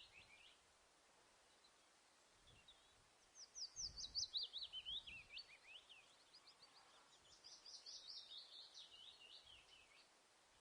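A songbird singing: a brief call, then two rapid trilled phrases of quick, high chirps that step down in pitch. The first phrase, about three seconds in, is the louder; the second follows about three seconds later.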